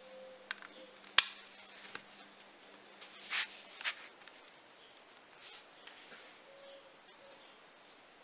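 Hand assembly noise of a metal nut and bolt being fitted to a 3D-printed plastic part: small clicks and scrapes, with one sharp click about a second in. There is brief rustling of fingers on paper around three to four seconds in.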